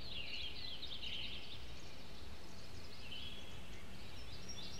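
Songbirds chirping and twittering in quick clusters over a steady low background hum, a recorded nature ambience.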